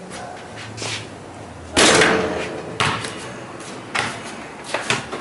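A basketball on a concrete court: several sharp thuds from bouncing and shooting. The loudest comes about two seconds in and rings on briefly.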